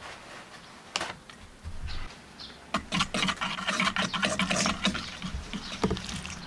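Wire whisk clicking and scraping against a stainless steel mixing bowl as water is poured into flour, mixing pancake batter. A single knock comes about a second in, and the quick irregular clicks of the whisk start a little before halfway.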